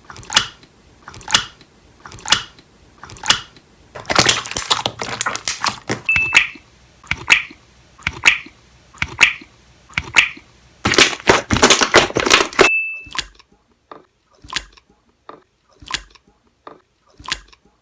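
Slime being dropped, falling in a run of short plops about once a second, with two stretches of dense crackling. The sound turns quieter after a cut about two-thirds of the way in, and a brief high tone sounds twice.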